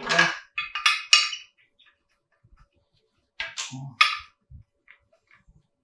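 Small metal engine parts clinking and clattering against each other and on a hard surface as they are handled and set down, in two short bursts of clinks.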